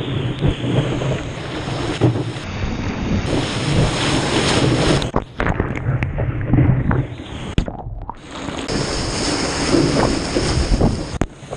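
Ocean surf: waves breaking and water rushing, with wind buffeting the microphone. The sound changes abruptly several times between shots.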